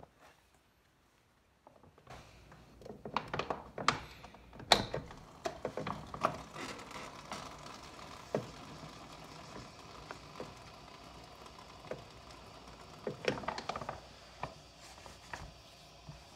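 Soft plastic water bag being handled, with scattered crinkles, clicks and knocks, over a low steady rush of hot water running into it from a water purifier's tap. It starts after a couple of seconds of near silence.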